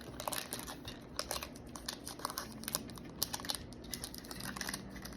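Crinkling of a Pokémon trading-card booster pack's foil wrapper being handled, a run of small irregular crackles.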